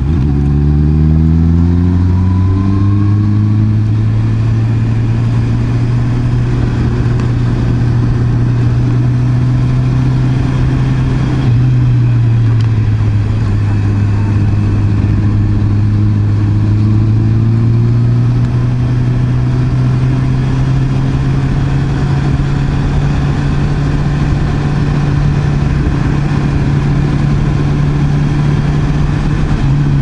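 Honda CB650R inline-four engine under way, revs climbing quickly for the first couple of seconds and then holding at a steady pitch. The revs jump up once about a third of the way in and ease back, then climb again a little later. A steady rush of wind and road noise runs beneath.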